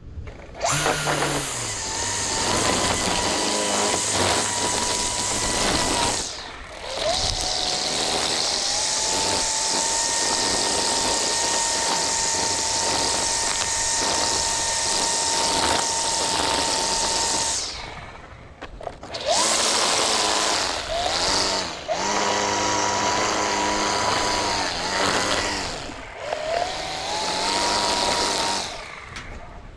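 String trimmer running in several long runs, edging grass along concrete. Its motor gives a steady high whine that dips off and rises again as it spins back up four or five times.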